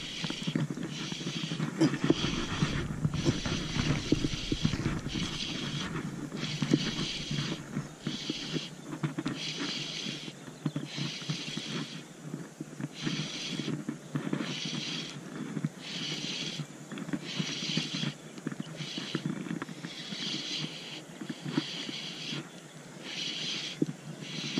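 Spinning reel being cranked to retrieve line, its gears whirring in a rasping rhythm that pulses about once a second.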